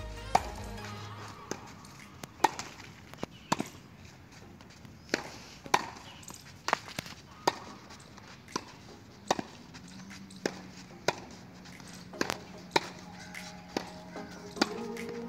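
Tennis balls struck by a racket and bouncing on a clay court in a rally: sharp knocks about every half second to a second.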